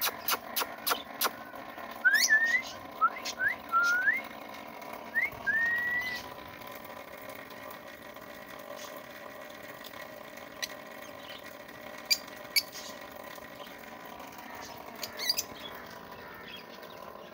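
Caged pet parrot whistling: a few sharp chirps, then a string of about six short rising whistles over four seconds. After that a faint steady hum runs on, with a couple of brief chirps later.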